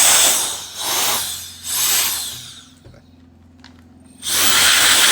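CCV cordless electric air duster's brushless motor fan blowing air in bursts: a rushing hiss with a high whine that rises and falls. Three short blasts come in the first two and a half seconds, then a pause of over a second, then a longer blast from about four seconds in.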